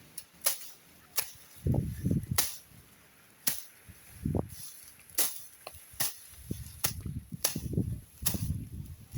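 Grass being cut: sharp snapping strokes at irregular gaps, roughly one a second, with low rustling between them.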